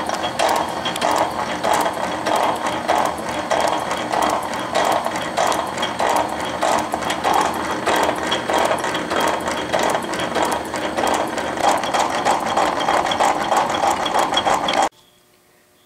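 Rhodes 7-inch metal shaper running, its ram stroking back and forth about once a second as the round-nose high-speed-steel tool takes a light cut in cast aluminium, with the clicking of the power cross-feed ratchet and gears on each stroke. The machine stops abruptly near the end.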